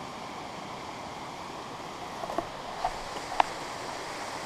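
River rushing steadily. A few light clicks come a little past the middle.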